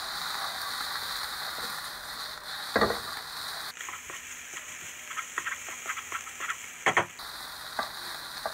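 Fried rice with noodles sizzling in a non-stick wok as a wooden spatula stirs and tosses it, with light scraping clicks and two louder knocks of the spatula on the pan, about three seconds in and about seven seconds in.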